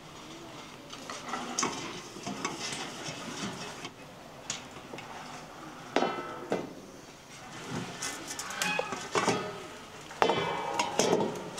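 A metal utensil stirring in a pan and clinking against it in irregular strokes over a faint sizzle. Two sharper ringing clinks come about six seconds in and near the end.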